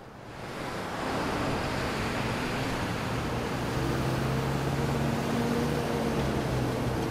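City road traffic: a steady wash of car engines and tyres that swells up over the first second, with a low engine hum from nearby cars coming in about four seconds in.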